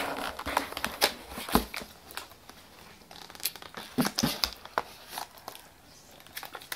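Plastic slime packaging crinkling and crackling as it is handled and pulled at by hand in an effort to tear it open, in irregular sharp crackles, busier in the first couple of seconds and sparser after.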